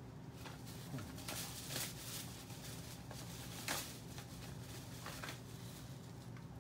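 A few short rustles and clicks of things being handled, over a steady low hum.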